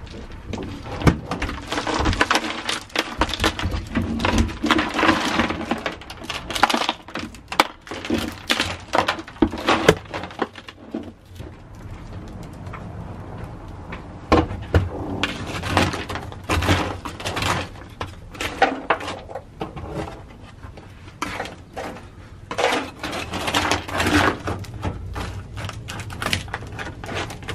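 Crushed dry ice being poured and raked with a scraper across a car's sheet-metal floor pan, which is coated in sound deadening. It makes clattering, crunching scrapes that come in irregular bouts. The dry ice is there to freeze the deadening so it can be chipped off.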